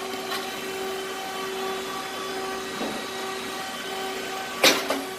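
Puffed rice cake machine running with a steady hum and a tone that pulses on and off about twice a second, with one sharp crack near the end.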